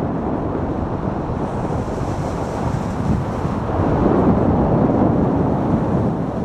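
Sport toboggan runners hissing over packed snow at about 30 km/h, mixed with wind rushing over the microphone. The rush grows a little louder about four seconds in.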